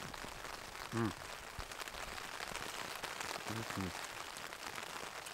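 Rain falling steadily on the fabric of a Big Agnes Copper Spur tent, heard from inside. Twice a man's short low murmur is heard as he eats, about a second in and again past halfway.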